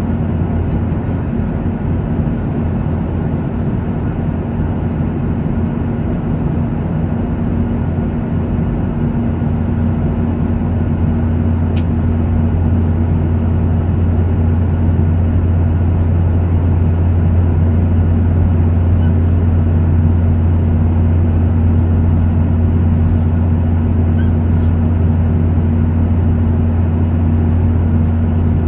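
Airliner cabin noise in cruise: a steady low drone of engine and airflow, heard inside the passenger cabin.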